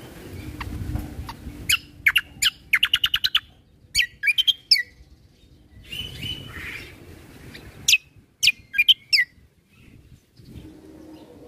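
Kecial kombo (cucak kombo) singing: loud, sharp chirping notes in clusters, including a rapid trill of about ten notes a second, with short gaps between phrases.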